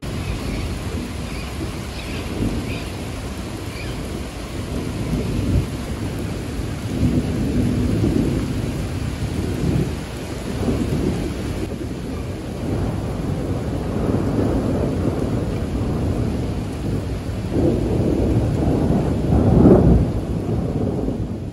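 Steady rain with low rolling rumbles of thunder that swell and fade several times, the loudest near the end.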